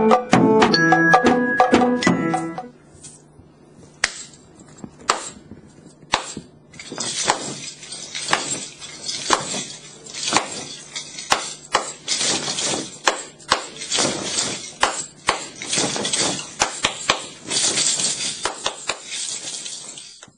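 Improvised percussion: a metal-barred glockenspiel struck with mallets and a drum hit with sticks play together for the first couple of seconds, then stop. Scattered light taps follow, and from about seven seconds a continuous hissing rattle full of sharp ticks takes over.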